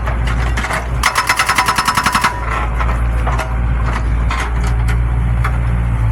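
Excavator-mounted hydraulic breaker hammering rapidly, about ten blows a second, in a burst of a second or so. Under it the excavator's engine runs steadily, and carries on alone with a few scattered knocks once the hammering stops.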